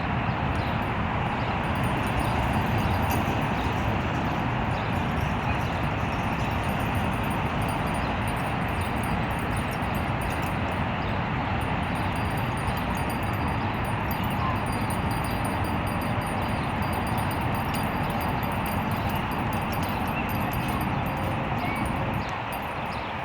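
Steady outdoor rumble of city traffic and wind, with faint jingling of small hand-shaken bells now and then.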